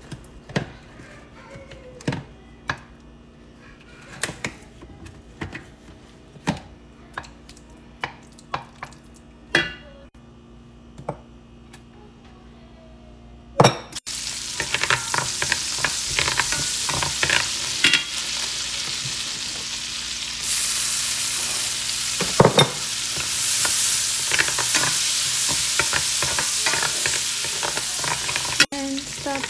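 At first quiet, with scattered light clicks while margarine melts in a stainless steel pot. About halfway in, a sudden steady loud sizzle of minced garlic frying in the hot melted margarine, with a wooden spoon stirring and scraping against the pot.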